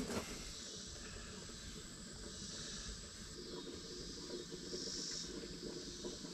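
Cicadas buzzing, a high drone that swells twice and fades back.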